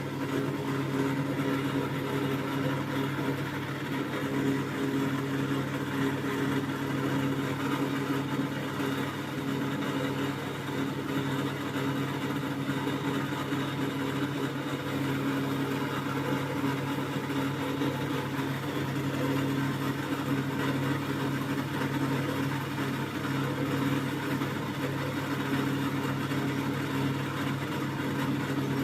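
Thomson washing machine running, a steady, unbroken motor hum.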